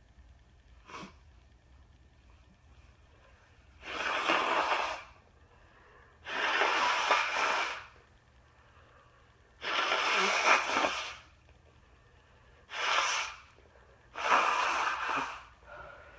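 A congested nose with a head cold letting out a series of five loud, rough, forceful nasal blasts, each about one to one and a half seconds long, after a faint short sniff about a second in.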